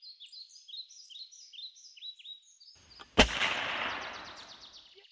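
Birds chirping in quick repeated calls, then about three seconds in a single loud shot that echoes away over a second or so.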